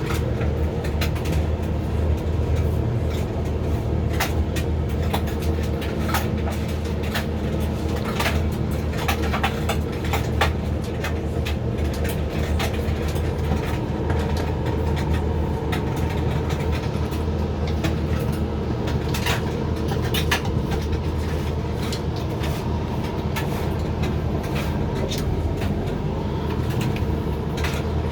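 Hoover XXL machine running a 60 °C drying cycle: a steady motor and fan hum as the drum turns, with irregular clicks and taps throughout.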